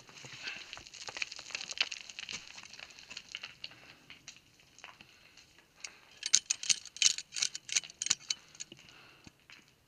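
Boots crunching and scraping on loose scree and gravel during a steep downclimb, with small stones rattling. About six seconds in comes a quicker, louder flurry of sharp crunches and clicks lasting two seconds or so.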